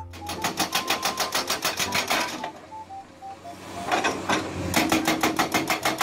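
Rapid, even hammering of an excavator's hydraulic rock breaker, roughly ten blows a second. It eases off for a moment about halfway through and then starts again. Over the first half runs a short tune of simple beeping notes that step downward.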